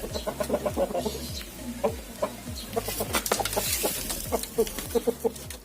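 Domestic chickens clucking: a run of short, irregular clucks, some overlapping.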